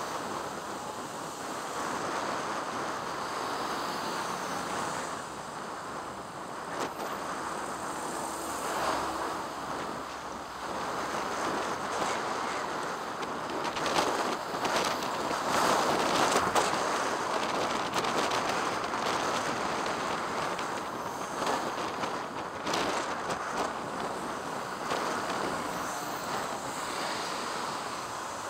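Wind and road noise from a moving bicycle, heard as a steady rushing hiss, with scattered knocks from bumps in the road that are loudest about halfway through.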